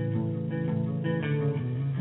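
Closing theme music with plucked guitar, a steady run of sustained notes that change every half second or so.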